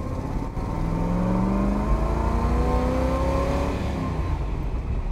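Bizzarrini 5300 Strada's 327 Corvette V8 (365 hp) accelerating under load. Its note climbs steadily for about three seconds, then falls away about four seconds in.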